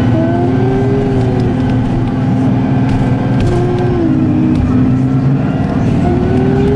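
CNG city bus with a Cummins Westport B Gas Plus engine and an Allison B300R automatic transmission, running under way. A drivetrain whine rises in pitch, holds and drops several times over the steady engine drone.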